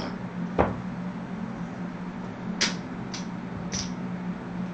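Casino chips clicking as they are set down on a craps layout: a handful of separate sharp clicks over a steady low hum.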